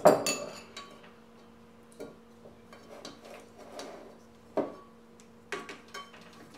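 A metal spoon clatters sharply in a small ceramic bowl of sushi-rice seasoning at the start, then a wooden rice paddle knocks and scrapes in a bowl of cooked rice as the vinegar seasoning is stirred in, a handful of softer knocks a second or so apart. A faint steady hum runs underneath.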